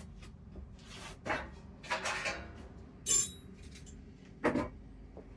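Metal hand tools and a metal tray being handled and set down on a workbench: a few scattered clinks and knocks, the sharpest a bright metallic clink about three seconds in and a duller knock about a second later.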